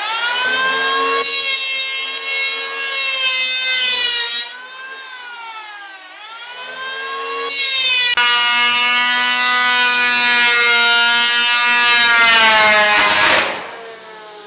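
Electric hand planer running at full speed with a high motor whine, its blades cutting across thin stacked pine layers. About four seconds in it winds down and spins back up. It runs loud again and winds down near the end, leaving the thin pine walls torn apart.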